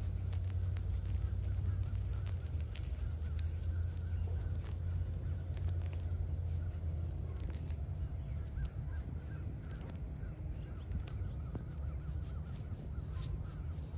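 Hands pulling and tearing turf around the base of a small headstone, heard as scattered crackles and clicks over a steady low rumble. Crows caw in the distance.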